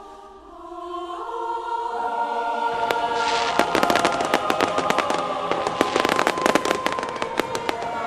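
Fireworks going off in a dense, rapid crackling and popping that starts about three seconds in, over sustained choir-like music that swells before it.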